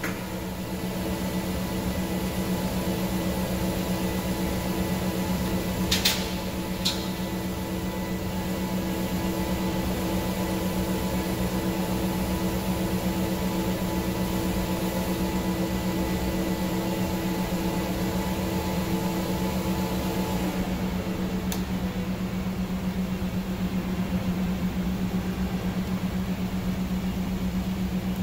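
A steady machine hum with a strong low tone runs throughout, with two sharp clicks about six and seven seconds in and a fainter click a little past twenty seconds.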